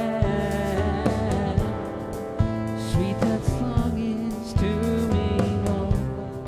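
Background gospel song: a singing voice over guitar and a steady beat.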